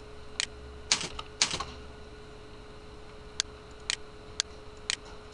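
Scattered sharp clicks from a computer mouse and keyboard being worked, about seven in all. The last four come at an even half-second pace. A faint steady hum sits underneath.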